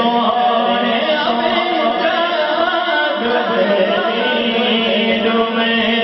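A man singing a naat, an Urdu devotional poem in praise of the Prophet, into a microphone over a PA system. He draws out long, ornamented held notes.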